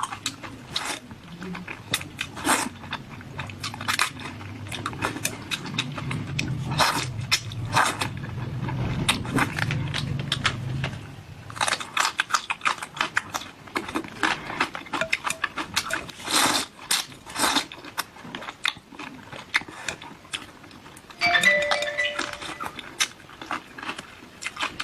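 Close-miked eating: wet mouth smacks, chewing clicks and bites, irregular and several a second, as a person eats spicy food.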